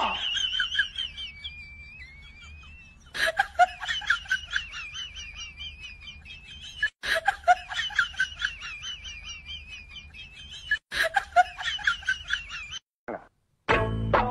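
High-pitched, squeaky comic laughter sound effect, repeated as a loop three times with short breaks between.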